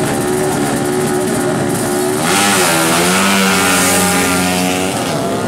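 Two drag-race motorcycles, one a tuned Honda Astrea Grand 100 cc single-cylinder four-stroke, revving on the start line, then launching about two seconds in: the engines get louder, their pitch dips and climbs again, then holds as they accelerate away.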